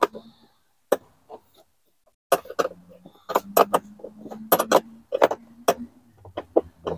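Irregular metallic clicks and clinks of a curved gooseneck wrench working a dashboard bolt by the windshield, growing more frequent after about two seconds, with a faint low hum in the middle.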